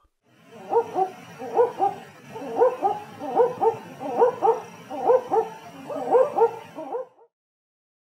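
Barking owl calling: a dog-like double-note 'wook-wook' bark, repeated about eight times at a little under one a second, then stopping about a second before the end.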